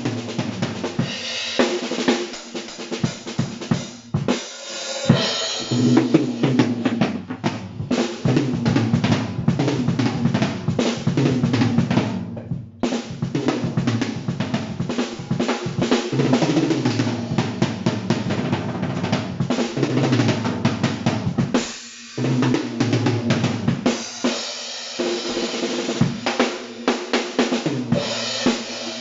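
Tama Imperialstar drum kit being played: a dense run of snare, bass drum and tom strokes with cymbals, briefly stopping twice, about halfway through and again near the end.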